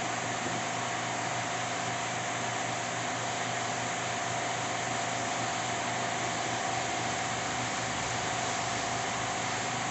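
A steady machine hum with a constant high whine and an even hiss, unchanging throughout: a motor running continuously in the background.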